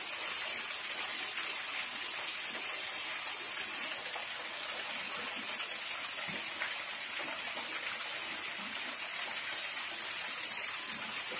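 Small waterfall: a thin stream of water pouring off a rock ledge and splashing into a rock pool, a steady rushing splash.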